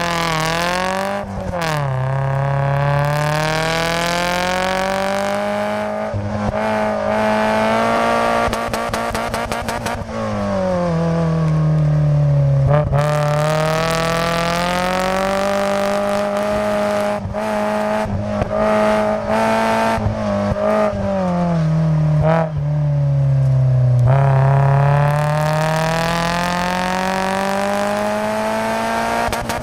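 Open-top roadster's engine during an autocross run, heard from inside the cockpit: the revs climb and fall again and again as the car accelerates down straights and slows for turns, with wind and road noise underneath.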